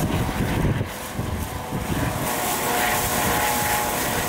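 Dauphin rescue helicopter flying past: a steady whine from its turbines and fenestron tail fan over a low rotor rumble, the whine growing stronger about two seconds in.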